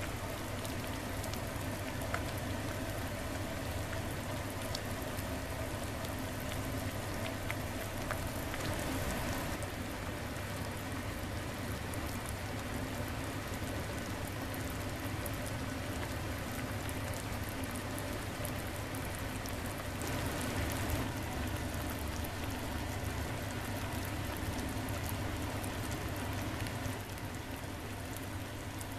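Spicy tantan gyoza hot-pot broth simmering in an earthenware donabe pot: a steady patter of fine bubbling ticks, like light rain.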